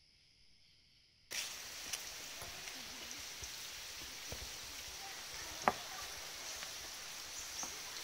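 Faint steady high insect drone. About a second in, a sudden change to a steady hiss of water in the rainforest, with a high insect buzz over it and scattered clicks and knocks; the sharpest knock comes just past halfway.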